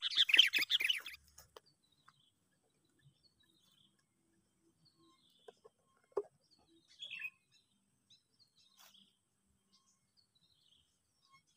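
Birds chirping: a busy burst of chirps at the start, then only faint, scattered chirps, with one short tap about six seconds in.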